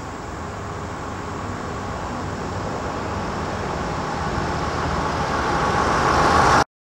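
Large sedan approaching over a coarse chip-seal road: tyre and engine noise grows steadily louder as it closes in, then cuts off suddenly near the end.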